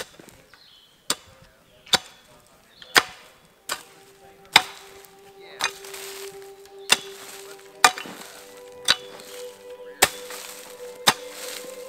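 A long-handled digging tool chopping into soil and roots, cutting trail tread into a hillside. The strikes are sharp and come about once a second, around eleven in all. Background music fades in under them from about four seconds in.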